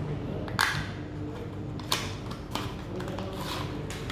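Charging-cable packaging being opened and handled by hand: a handful of sharp clicks and rustles, the loudest about half a second in and another near two seconds.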